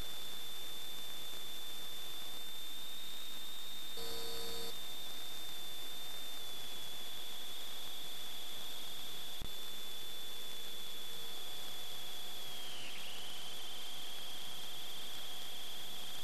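Steady electronic hiss with a thin, high whine, the recording noise of a sewer inspection camera system; the whine dips briefly in pitch near the end. A short buzzy burst comes about four seconds in, and a faint click comes about nine seconds in.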